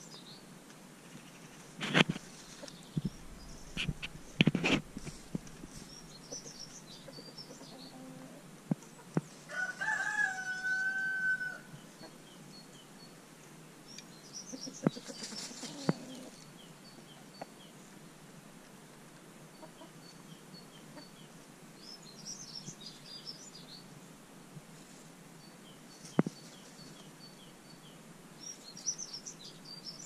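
A rooster crows once, a long held call about ten seconds in. Small birds chirp in the background, and there are two sharp thumps in the first five seconds.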